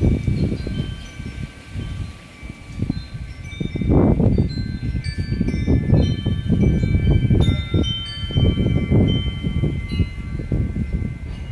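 Wind chimes ringing in the breeze, many clear high tones struck at random and left to ring on, overlapping. Underneath, gusty wind rumbles on the microphone.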